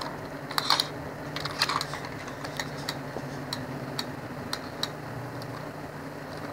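A run of light clicks, like keys or buttons being pressed: a few quick clusters in the first two seconds, then single clicks about every half second, stopping about five seconds in. A steady low hum runs underneath.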